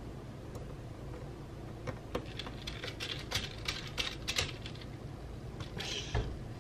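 Small clicks and taps of a tool and small parts being worked inside an opened Mac mini, a quick run of them in the middle, then a brief rattle and a soft knock as a part is set down on the desk.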